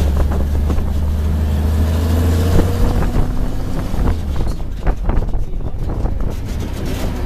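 Safari truck's engine running with a steady low drone as the open-sided truck drives along, with wind on the microphone. The drone drops off about three seconds in, and a few knocks follow near the middle.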